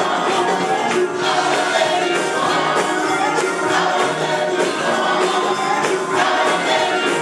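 Gospel music: a choir singing over instruments with a steady beat.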